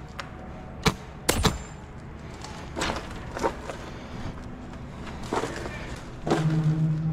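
Airsoft M4 rifle firing single shots: three sharp shots in the first second and a half, then a couple of fainter ones. Near the end a short held voice call sounds for under a second.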